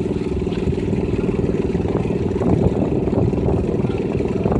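Cub Cadet 70 garden pulling tractor's engine running at a steady speed while the tractor stands hitched to the sled, not yet pulling.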